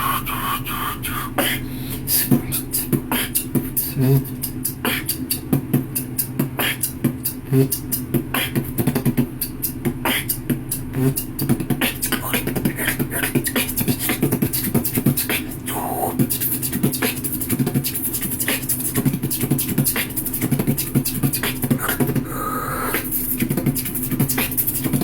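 Solo human beatboxing: fast, dense mouth-percussion clicks and snares in a driving rhythm over a steady low hummed tone, with a few short vocal pitch glides mixed in.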